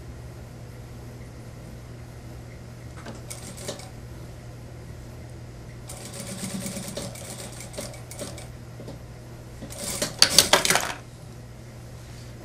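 Industrial lockstitch sewing machine stitching a jacket seam in short runs, over a steady low hum. The loudest run is a fast string of clicks about ten seconds in.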